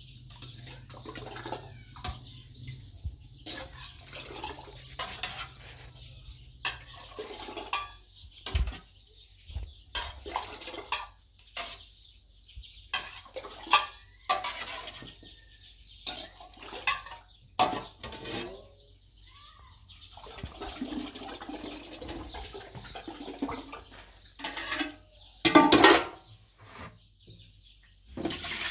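Irregular knocks and clatter, like pots and utensils being handled, with a stretch of sloshing liquid about two-thirds of the way through and one louder knock near the end.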